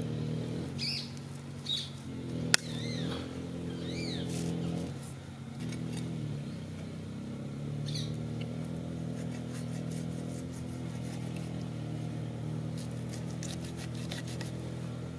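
An engine running steadily nearby, its pitch wavering slightly, with a few short high chirps and one sharp click about two and a half seconds in.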